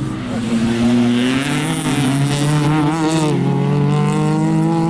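Several race-car engines running hard through a corner, their pitches sliding up and down with gear changes and throttle. A warbling squeal comes in around the middle, and one engine's pitch climbs near the end as it accelerates away.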